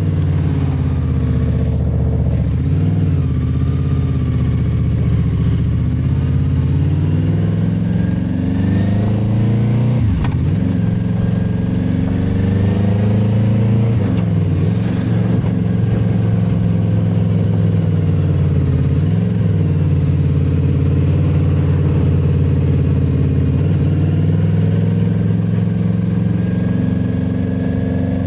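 Benda Dark Flag 500 Commander's V4 engine through its twin exhaust pipes, pulling away on the move: the revs climb and drop at four gear changes, then hold steady.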